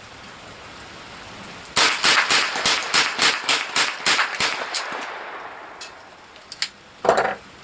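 Savage Model 64 semi-automatic .22 LR rifle fired in a quick string: about a dozen shots in three seconds, roughly four a second, starting about two seconds in. One more sharp sound comes near the end.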